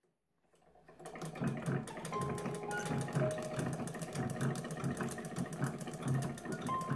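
Electric sewing machine running steadily, its needle mechanism making a rapid, even clatter with a low motor pulse beneath. It fades in about a second in.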